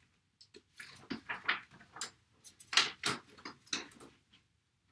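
A sheet of sublimation paper being handled and loaded into an Epson ET-2720 inkjet printer: a string of short paper rustles and plastic clicks and knocks, the loudest about three seconds in.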